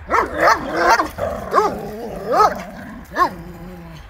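Two dogs, a Belgian Malinois and a Presa Canario, vocalising during a tug-of-war over a rope toy: a string of short rising-and-falling bark-yelps over a lower held growl, several in quick succession at first, then about one a second.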